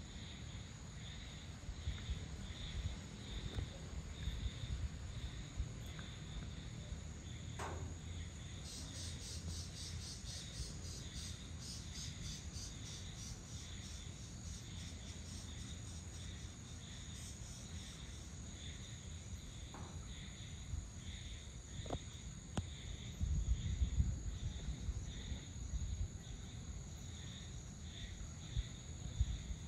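Crickets and other insects calling together: a steady high trill under a regularly pulsing chirp, joined for several seconds about a third of the way in by a faster, higher rattling call. A low rumble swells about three-quarters of the way through.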